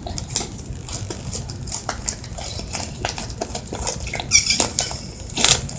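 Fluffy slime being kneaded and stretched by hand, giving irregular wet clicks and small squelching pops, with a brief squeak a little after four seconds in.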